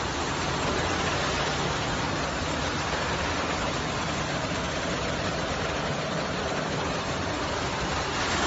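Brush sanding machine for wood doors running: its rotating abrasive brush heads and drive motors make a steady rushing noise with a low hum underneath.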